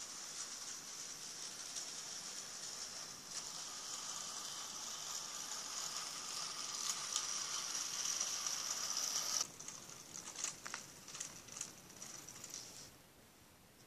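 Small electric model train locomotive running along its track: a steady high whir and rattle from its motor and wheels that cuts off suddenly about two-thirds of the way in as it stops. After that come a few light clicks and knocks as the model is handled.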